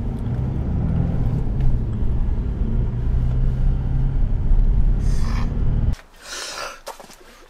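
Engine and road noise inside a moving car's cabin, a steady low drone. It cuts off suddenly about six seconds in, and a brief quieter rustle follows.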